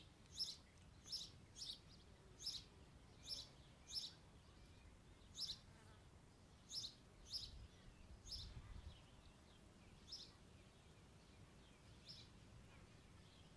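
Faint, short, high chirps of a small bird, repeated several times a second at first, then thinning out to single chirps a second or two apart.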